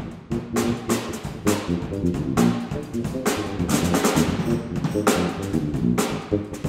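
Tuli Kaamos Northern Lights Edition electric bass played through a bass amp, a moving line of low notes, with a drum kit playing along: frequent snare, kick and cymbal hits several times a second.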